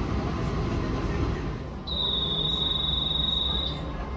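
Low running rumble of trains on the line. About two seconds in, after a short dip, a single steady high-pitched beep sounds for almost two seconds.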